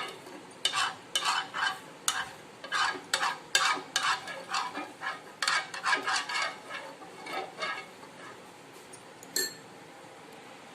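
A utensil scraping ghee around a hot frying pan in quick strokes, about three a second, stopping about eight seconds in, then a single sharp knock.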